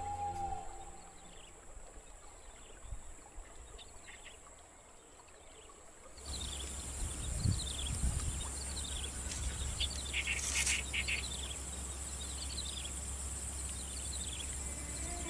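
Outdoor ambience of small birds giving short, repeated falling chirps over a steady high insect trill. It becomes louder and busier about six seconds in.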